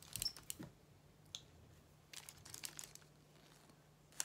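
Plastic action figure being handled and turned in the hands: light clicks and rustles in short clusters, one near the start and another a couple of seconds in.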